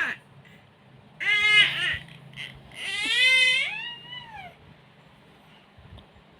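Two high-pitched wailing cries, the second longer, rising and then falling in pitch.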